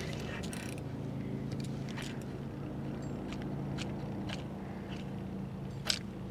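A boat motor running steadily, with a few sharp clicks and ticks over it, the loudest near the end.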